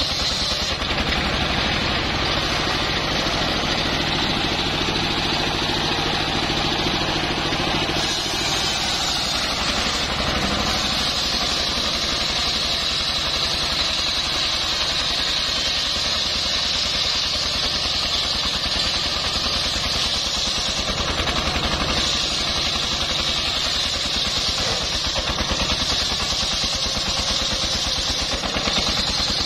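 A stationary engine runs steadily, driving a large circular saw blade that is ripping a log lengthwise, with the hiss of the blade cutting wood over the engine's beat. The sound changes about eight seconds in, as the lower steady tones drop away and the high cutting hiss grows.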